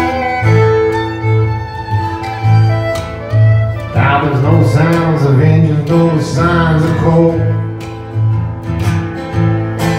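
Live bluegrass band playing an instrumental break: a fiddle carries the melody over a plucked upright bass keeping a steady beat and a strummed acoustic guitar. The lead line gets busier and more wavering from about four seconds in.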